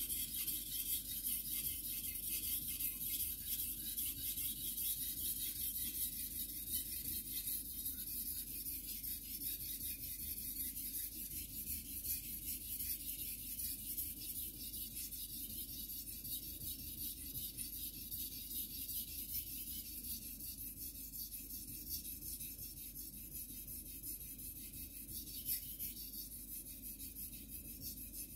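A carbon-steel (Shirogami #2) gyuto blade being stroked quickly back and forth on a wet Japanese water stone: a continuous rasping scrape, growing slightly quieter toward the end.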